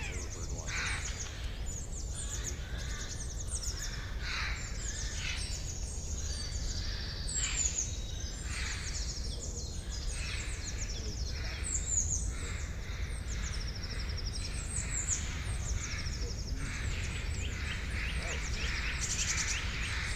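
Several songbirds chirping and trilling over a steady low rumble, with many short, quick high calls overlapping throughout.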